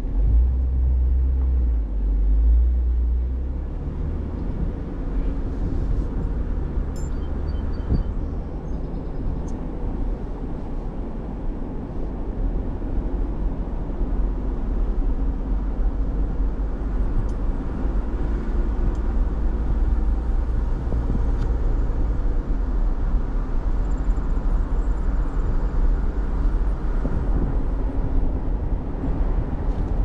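Car driving along a road: a steady low rumble of tyre and engine noise, deepest and heaviest for the first few seconds. A few faint high chirps come about seven seconds in.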